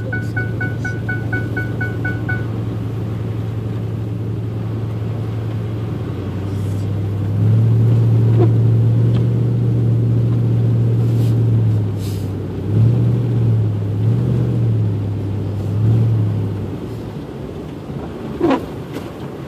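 Engine and road noise of a 4x4 truck driving on a snowy street, heard from inside the cab: a steady low drone that grows louder about seven seconds in, swells several times, and eases off near the end. A quick run of high electronic beeps sounds for the first couple of seconds, and a short falling squeal comes near the end.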